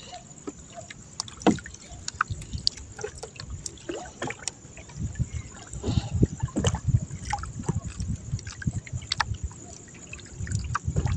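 Wet trammel net being hauled in over the side of a small boat: water dripping and splashing off the mesh, with scattered clicks and low bumps against the hull, heaviest in the middle and near the end.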